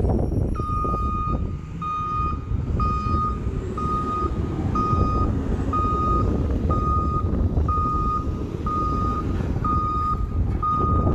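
Rear-loader garbage truck reversing: its back-up alarm gives a single-pitched beep about once a second, starting about half a second in. Under the beeps is the steady low rumble of its diesel engine.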